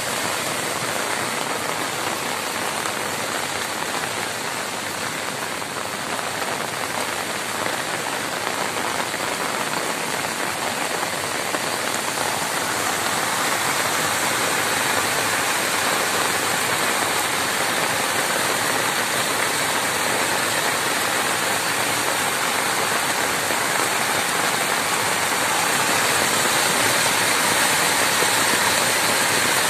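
Heavy rain pouring down steadily. About halfway through it grows slightly louder as the rush of floodwater running through a gateway and over a step joins in.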